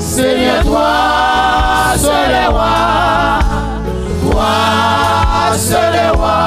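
Gospel worship music: a group of voices singing long held notes over a band with a steady bass line.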